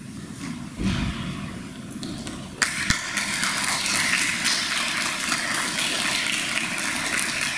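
Audience applauding: dense clapping that starts suddenly about two and a half seconds in and keeps going steadily. A dull low thump comes about a second in.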